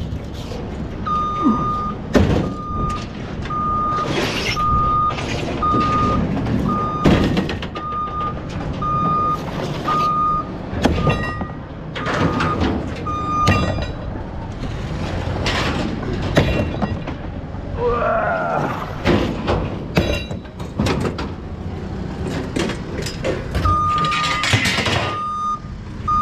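A vehicle's reversing alarm beeping about once a second, stopping about halfway through and starting again near the end. Throughout, loose scrap metal clanks and thuds as it is handled and dropped from a pickup bed.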